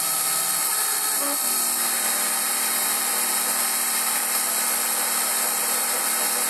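Emco Compact 5 CNC lathe running at 1300 RPM while the tool takes a 0.5 mm turning pass on a 6082-T6 aluminium bar: a steady machine whine with cutting hiss. It is cutting quite happily, without strain.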